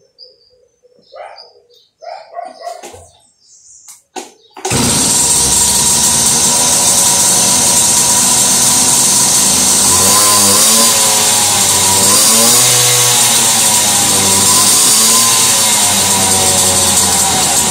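A two-stroke moped engine catches abruptly about four and a half seconds in, after some scattered clicks, and runs loudly, revved up and down over and over in the second half. The owner blames a bad carburetor that won't hold an idle.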